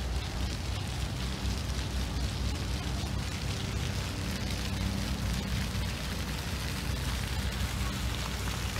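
Steady, uneven low rumble of wind buffeting the microphone, over a faint outdoor hiss.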